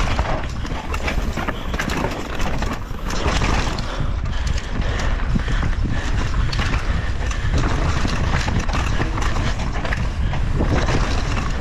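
Wind buffeting the microphone of a camera on a mountain bike descending a dirt downhill trail, with tyre noise on the dirt and a steady clatter of the bike's chain and parts over bumps.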